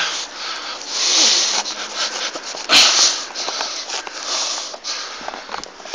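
Breathy, hissing sniffs and breaths close to a handheld phone's microphone, with rustling handling noise and one sharp click about three seconds in.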